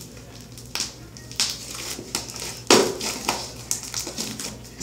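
Fluffy slime squeezed and kneaded by hand, giving irregular soft squishes and crackles, the loudest nearly three seconds in.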